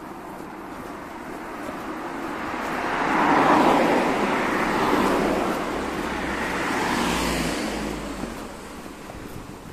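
Cars driving past on the road, the tyre and engine noise swelling as they come close, loudest about three to five seconds in with another rise near seven seconds, then fading away.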